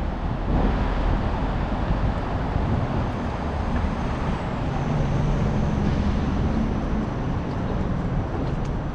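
Steady city street traffic noise, with the low hum of a passing motor vehicle's engine through the middle.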